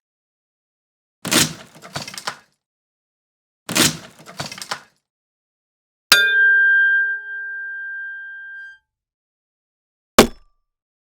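Axe chopping into wood twice, each blow followed by about a second of crackling as the wood splinters. Then a single ringing metallic strike that dies away over two to three seconds, and a final short, sharp axe hit near the end.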